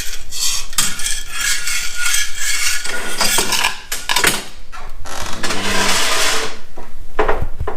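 Metal tool parts (impact wrench, socket and extension) clinking and clattering as they are handled, with a longer rushing noise from about five to six and a half seconds in.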